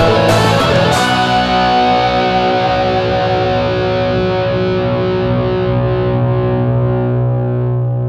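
Rock band's closing chord: a few drum hits in the first second, then a distorted electric guitar chord held and slowly dying away.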